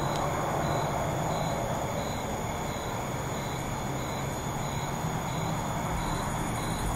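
Steady outdoor night ambience: a continuous low rumble and hiss, with crickets chirping about twice a second.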